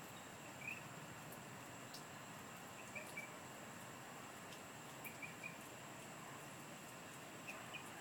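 Short, faint, high chirps from an unidentified nocturnal tree-dwelling animal, coming singly or in quick runs of two or three about every two seconds. A steady high-pitched whine runs underneath.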